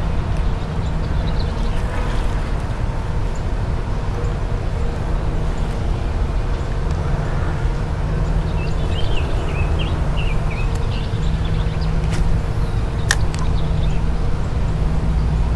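Steady low rumble of road traffic, with a few short high chirps in the middle and a sharp click near the end.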